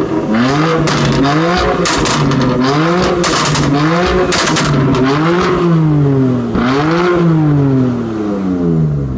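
BMW M4 Competition's 3.0-litre twin-turbo straight-six with the M Performance exhaust, blipped about once a second in a string of quick revs, with crackles and pops on each one. About seven seconds in comes a longer rev that falls away slowly.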